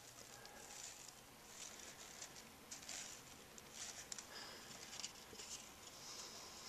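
Faint rustling and light clicking of a flexible woven cup, 3D-printed in laser-sintered nylon, as it is squeezed and turned in the hands and its interwoven bands rub against each other.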